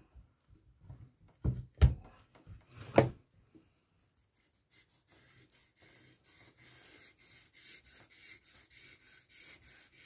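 A multi-tool's knife blade stroked freehand across a two-sided Parkside sharpening stone: a rhythmic scraping of steel on stone, about three strokes a second, starting about four seconds in. Before it come a few knocks as the tool and stone are handled.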